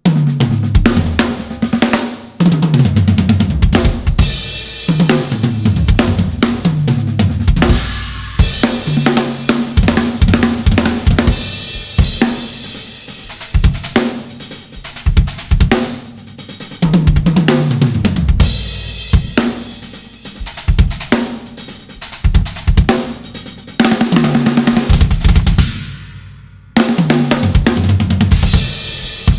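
Acoustic drum kit played hard: kick, snare and cymbals, broken up again and again by fills that step down in pitch across the toms. The kit stops briefly about 26 seconds in, then comes back in.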